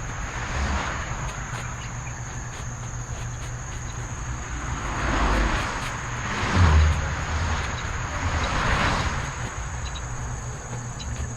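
Soil and potato roots rustling and scraping as they are dug through by hand, rising in a few swells, with a low thump about seven seconds in. A steady high insect drone runs underneath.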